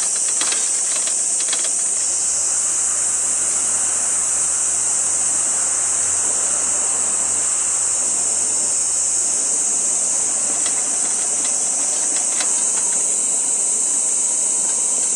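Coleman gasoline (white-gas) lantern burning with a steady rushing hiss after being lit and adjusted, with a few clicks of handling in the first two seconds and again near the end. A continuous high-pitched insect chorus runs underneath.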